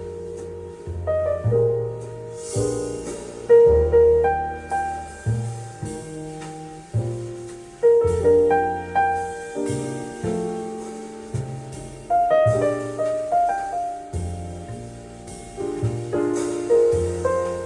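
Instrumental break of a slow jazz ballad: piano playing melody and chords over a low bass line, played back on KEF Q300 speakers.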